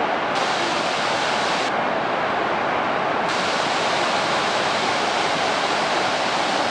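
Pykara Falls' water cascading down rock steps, a steady, unbroken rush of noise.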